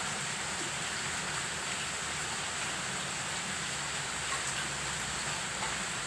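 Steady rain falling on garden foliage and a wet stone path: an even hiss, with a few louder drops ticking here and there.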